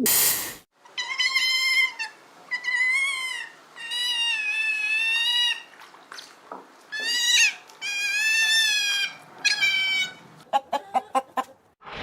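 A cat meowing repeatedly: about seven high, drawn-out, wavering meows, followed by a quick run of short clicks near the end.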